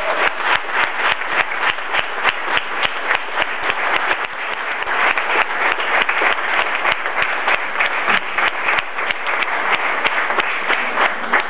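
Audience applauding, a dense steady patter with sharp individual claps standing out.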